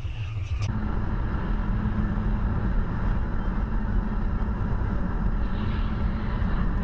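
Steady road and engine noise of a car driving at highway speed, heard from inside the cabin, with a low steady hum. A short click comes just under a second in, where the sound changes.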